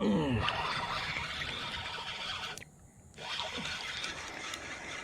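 Water splashing and sloshing as a hooked bass is brought in at the water's edge. The sound drops out briefly a little past the middle.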